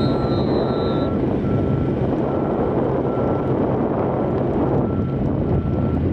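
A steady engine-like hum and rush, with a short electronic beep repeating a little more than once a second, like a vehicle's reversing alarm.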